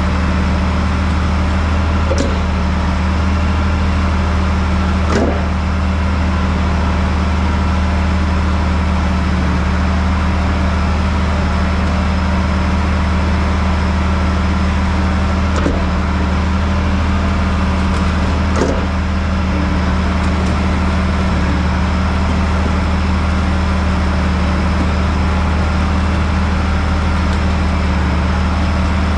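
Heavy engine of farm machinery running steadily at an even speed, with a few faint knocks now and then.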